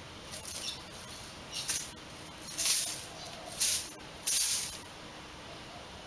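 Rabbit digging in loose sandy soil: five short, scratchy scrapes of sand being pawed and flung, about a second apart.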